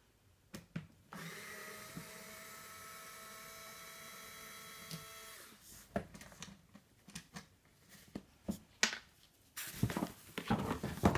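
Small cordless screwdriver running at a steady pitch for about four seconds as it backs a screw out of the carry cot's Easy Click mechanism. Scattered clicks of handling follow, then a rustle of fabric and plastic near the end as the carry cot is tipped over.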